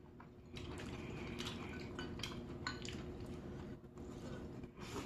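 Eating utensils clinking and scraping against a dish in a run of light, irregular clicks, as the last rice cakes are picked out of the spicy noodle dish.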